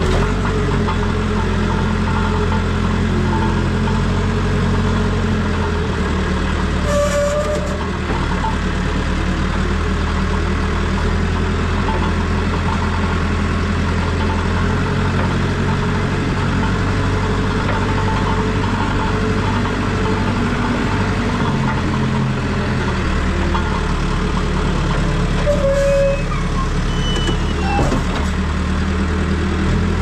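Caterpillar backhoe loader's diesel engine running steadily under the operator's seat as the machine is driven, its note shifting a couple of times.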